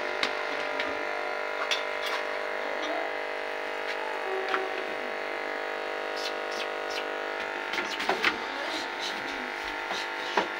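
A steady machine hum made of several fixed tones, with scattered light clicks and taps as a rolled chapati is laid on an iron tawa. A small cluster of taps comes about eight seconds in.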